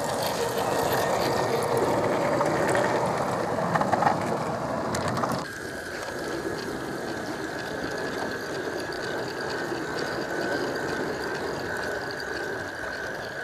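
A 16mm scale battery-electric model locomotive running along garden railway track, its small electric motor and gears whirring with the clatter of wheels on rail. About five and a half seconds in the sound drops abruptly, and a steady high whine carries on.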